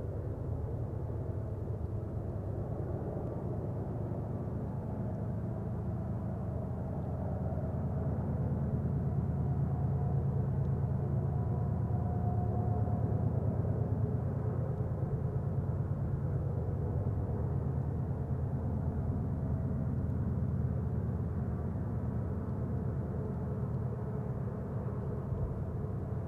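BNSF diesel locomotives working a train up a grade: a steady low engine rumble with a faint hum of engine tones above it, swelling a little partway through.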